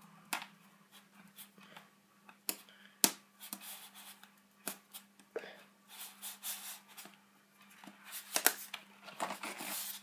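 Scissors cutting sellotape on plastic packaging: irregular small snips and clicks, with short bursts of rustling from the clear plastic sheet, busier in the last few seconds.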